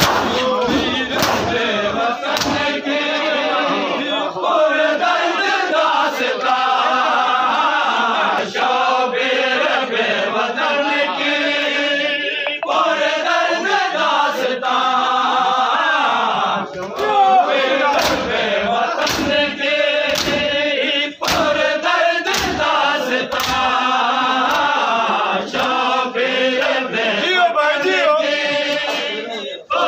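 A crowd of men chanting a Shia mourning chant (noha) together, with sharp slaps of hands striking bare chests (matam) at irregular intervals.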